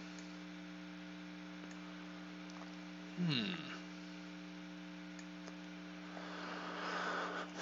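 Steady electrical mains hum picked up by a headset microphone, with a few faint clicks. About three seconds in, a brief falling murmur from a man's voice, and near the end a rising breathy rush.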